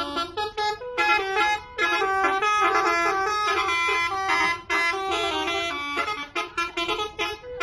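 Bus telolet horn, a set of air-horn trumpets, playing a quick jingle: chords of several horn notes switching in rapid steps, breaking into shorter stabs near the end.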